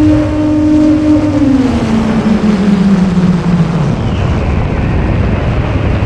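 Brushless motors and propellers of a 9-inch FPV quadcopter, heard through the onboard camera's microphone: a loud motor tone that drops in pitch about two seconds in as the motors slow, then fades under heavy wind and propeller-wash noise.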